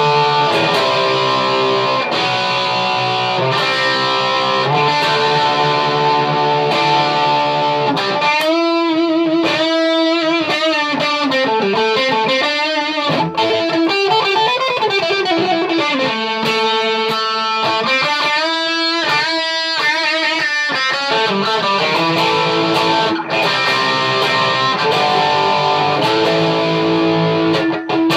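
Home-built Stratocaster electric guitar being played: chords at first, then from about eight seconds in a single-note lead with string bends and vibrato, returning to chords after about twenty seconds.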